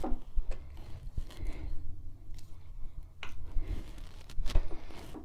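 Screwdriver tightening the motor-mount screw on a Singer 66-6 sewing machine's motor, with a few sharp metal clicks and scrapes over a low rumble of handling.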